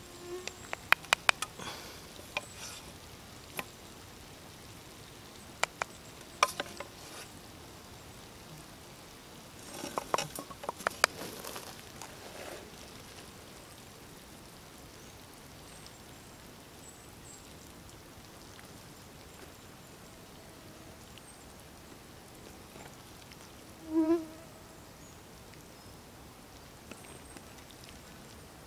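Wooden spoon knocking and scraping against a steel pot and a frying pan while rice and vegetables are served, a series of sharp clicks and taps in the first dozen seconds. Later, one brief insect buzz.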